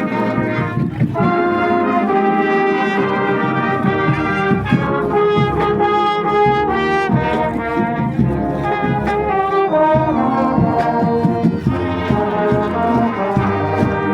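Large marching band playing, with brass (trombones and trumpets) carrying the tune loudly and continuously.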